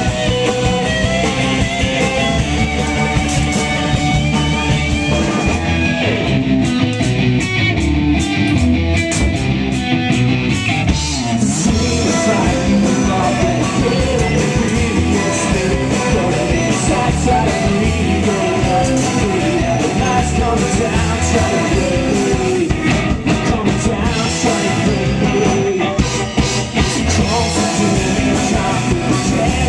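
Loud live rock band playing, with strummed electric guitars, drums and a sung lead vocal.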